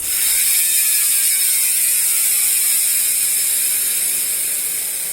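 Paps Pro 2 bicycle hub's 8-pawl freehub ratchet buzzing as the spun wheel coasts, a fast run of clicks that starts abruptly, then slows and fades.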